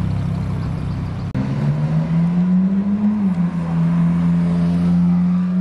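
A Ferrari Roma's twin-turbo V8 running as the car drives off. About a second in, this gives way to a Ferrari 458 Italia's naturally aspirated V8 pulling away: its note rises, drops with an upshift, and then holds steady.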